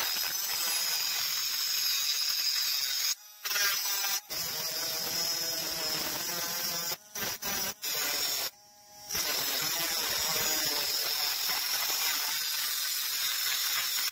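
Homemade mini cut-off grinder, driven by a 12 V car power-window motor, with its abrasive disc grinding through a metal rod: a steady, high-pitched grinding hiss with a thin whine over it. The sound cuts out briefly a few times.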